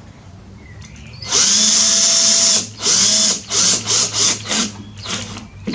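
Electric drill driving a bolt through a socket adapter: one steady run about a second in, then a quick series of about six short trigger bursts as the bolt snugs down.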